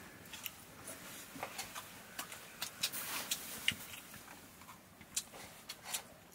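Irregular light clinks and scrapes of steel plates and bowls as people eat rice by hand, one clink ringing briefly a little over halfway in.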